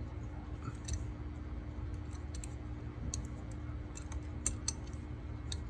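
Scattered light metallic clicks and ticks of a crescent wrench being adjusted and fitted onto a metal pipe plug, over a steady low hum.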